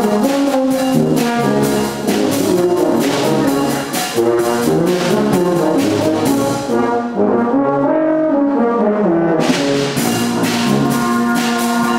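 Youth brass band of euphoniums, baritones, tenor horns and trombones playing loudly in chords. About seven seconds in, the bright upper part drops out and a lower, mellower passage plays for a couple of seconds before the full band comes back in.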